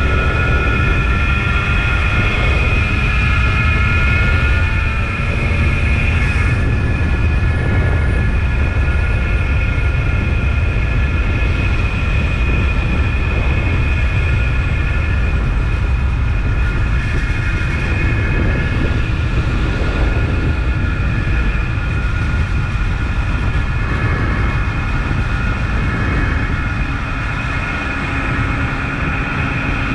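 1976 Suzuki GT185's two-stroke twin engine running on the move, its note holding fairly steady, over a heavy low rumble of wind noise.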